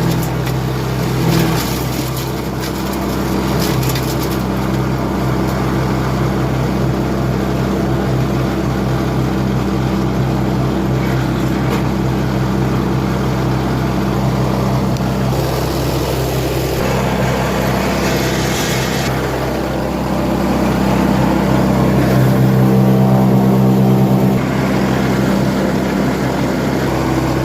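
Wood chipper's engine running steadily, with a flurry of rapid clicks in the first few seconds and a louder stretch about twenty-two seconds in.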